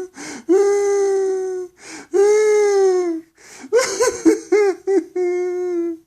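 A grown man crying like a baby: long held wails that sag slightly in pitch, each preceded by a gasping inhale. About four seconds in, the crying breaks into stuttering sobs, then one last wail ends near the close.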